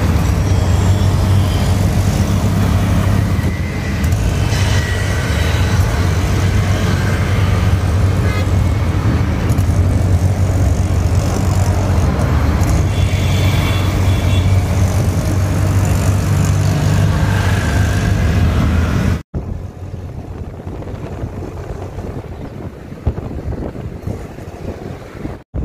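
Auto-rickshaw ride through city traffic: the auto's engine running steadily under road and wind noise, with short horn toots from traffic several times. About three quarters of the way through the sound cuts off suddenly to a quieter stretch of outdoor wind noise.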